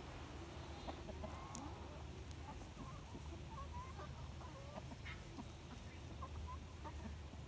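A mixed flock of chickens clucking softly, with short scattered calls as they forage, over a steady low background rumble.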